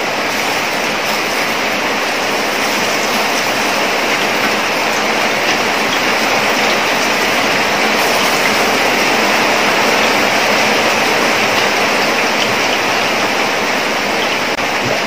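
Batter-coated cauliflower pieces deep-frying in hot oil: a loud, steady sizzle that builds a little as more pieces are dropped in.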